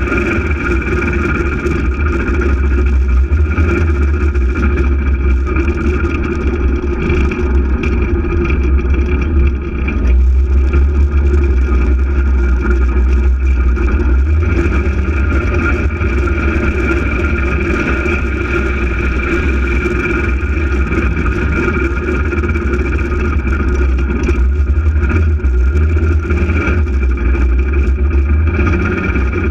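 Polaris RZR 800 side-by-side's twin-cylinder engine running steadily under way, with a steady drivetrain whine over a heavy low rumble; the level dips briefly about ten seconds in.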